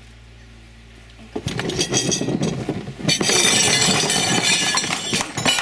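A faint steady hum, then about a second in a sudden loud commotion as a bull elephant charges into a dining table: a dense clatter of knocks and crashes of furniture, tableware and the camera being knocked about. It grows louder again about three seconds in.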